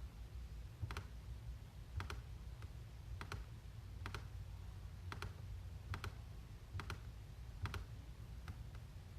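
A series of about ten short, sharp clicks, roughly one a second, over a low steady hum.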